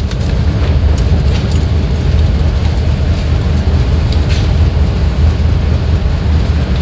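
GMC Yukon's 6.0-litre V8 idling with a steady low drone, running rough with a misfire on cylinders 4 and 5.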